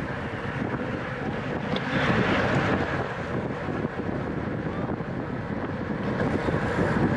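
Steady rushing wind noise buffeting the microphone of a bike-mounted camera at racing speed.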